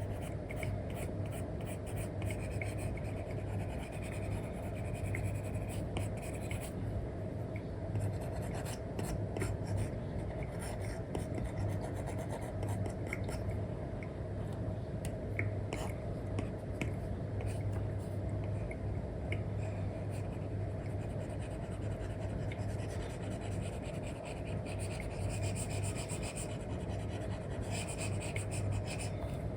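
Apple Pencil nib scratching and tapping on an iPad fitted with a paper-like matte screen protector: many short, quick drawing strokes over a steady low hum.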